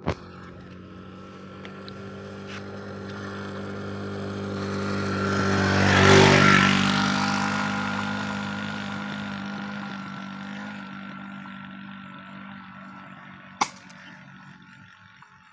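A motor vehicle driving past, its engine hum swelling to a peak about six seconds in and then fading away. A single sharp click sounds near the end.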